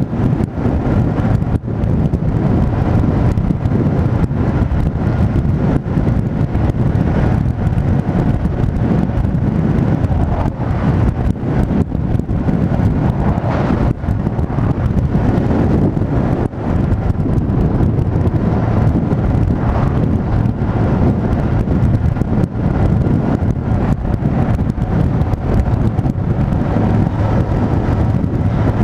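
Wind buffeting the microphone of a moving motorcycle at road speed, over the steady drone of the motorcycle itself.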